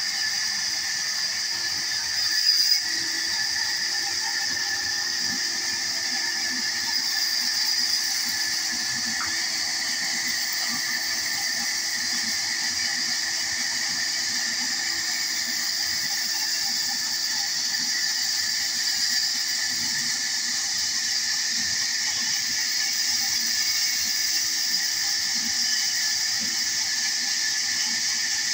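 Large vertical band saw running steadily with a high hiss and whine as its blade cuts through wooden planks. There is a brief knock about two and a half seconds in.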